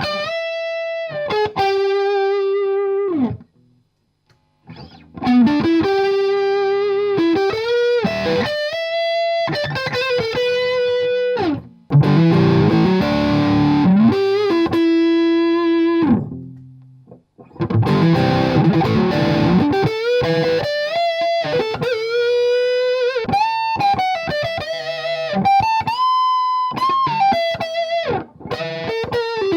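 Bad Cat Love Pup electric guitar played through an Orange Tiny Terror amp on a dirty crunch tone: single-note lead lines with string bends and vibrato, with two passages of strummed chords about halfway through. The playing stops briefly twice.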